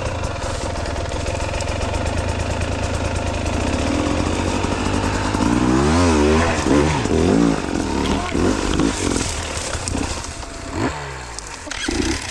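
Two-stroke enduro dirt bike engine running at low revs. From about halfway, the throttle is blipped again and again, the pitch rising and falling in quick surges, as the bike is picked carefully across and down a steep slope.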